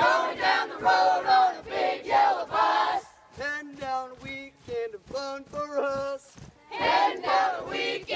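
Boot camp marching cadence chanted call-and-response: a group of young voices shouts a line in unison, a single leader's voice calls the next line, and the group answers again near the end.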